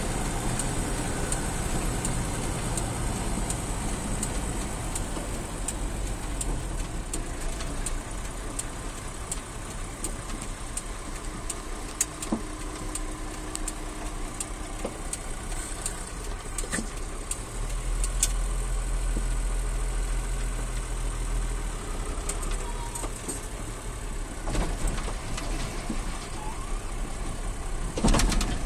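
Car engine and road noise heard from inside the cabin while driving, a steady low rumble that grows louder about two-thirds of the way through, with a few light clicks and a louder noise near the end.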